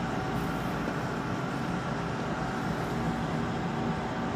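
Steady background noise with a faint constant hum, even throughout, with no distinct events.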